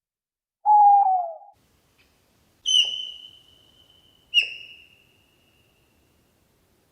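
Animal calls: one low hoot falling slightly in pitch, then two high whistled notes, each starting sharply and trailing off.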